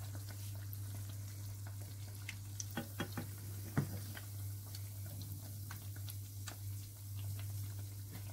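Dough fritters frying in sunflower oil, a steady sizzle with scattered small crackles and pops over a low hum. Between about two and a half and four seconds in, a fork and spoon click against the pan a few times as pieces are turned and lifted out.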